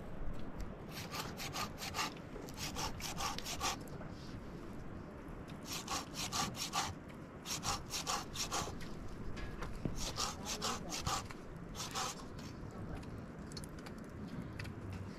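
Quick rhythmic rubbing or scraping strokes in several short bursts, about four or five strokes a second.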